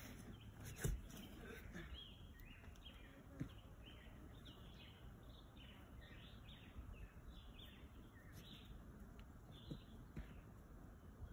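Quiet forest ambience with a bird singing a long string of short, falling chirps, about three a second, starting about two seconds in and stopping a couple of seconds before the end. A single sharp tap comes about a second in.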